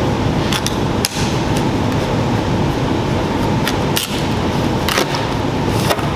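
Metal hand scraper scraping and clicking against a steel car bonnet as it pries off flaking, peeling paint, giving several sharp clicks at irregular intervals. Under it runs a loud, steady noise.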